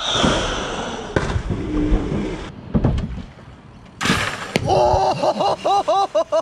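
A person plunges from a jetty into reservoir water with a splash about four seconds in, after a loud noisy stretch. Short, high-pitched whooping cries follow, rising and falling about three times a second.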